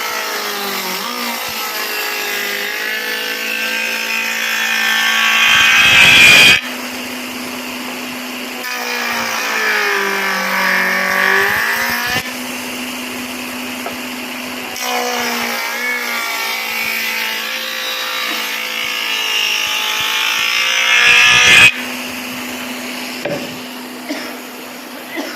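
Woodworking power tool running and cutting wood: a steady motor hum whose pitch sags and recovers as it works the wood. The sound swells to its loudest twice, then breaks off abruptly.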